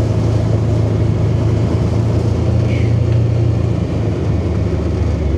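A motor vehicle's engine running steadily, a low even rumble.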